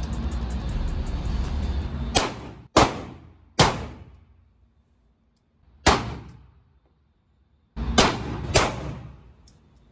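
Six pistol shots from a Glock 43X 9mm subcompact, fired at uneven intervals over about six seconds. Each is a sharp crack with a short ringing tail. Before the first shot, a steady background sound cuts off abruptly.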